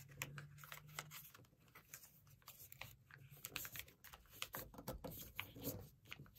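Faint rustling and scattered soft ticks of a sheet of paper being folded and creased flat by hand.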